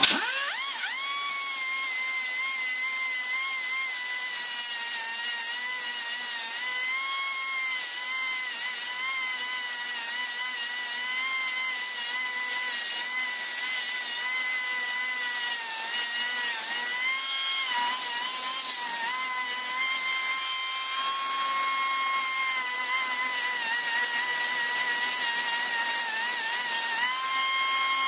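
Electric angle grinder spinning up and grinding down spot welds on a truck's steel roll pan: a steady whine whose pitch wavers and dips as the disc bites the metal, a little louder in the last third.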